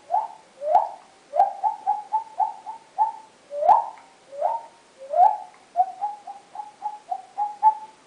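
A person imitating a tropical bird with the mouth: a string of short whistled calls, each starting with a sharp click and sliding up in pitch. Some calls are spaced out and some come in quick runs of several.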